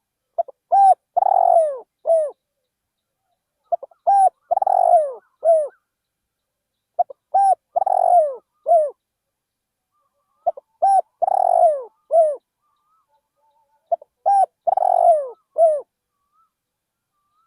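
Spotted dove cooing: five repeated phrases about every three and a half seconds, each a couple of quick short notes, then a longer coo falling in pitch and a final short coo.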